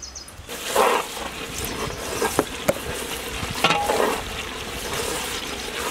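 Tomato and green-chili masala sizzling as it fries in a large metal pot, stirred and scraped with a big metal ladle, with a few sharp clinks of the ladle against the pot.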